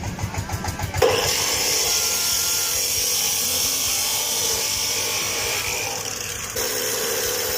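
Power tool cutting through a steel pipe. The cut sets in suddenly about a second in and runs steadily with a hissing whine, changing tone near the end.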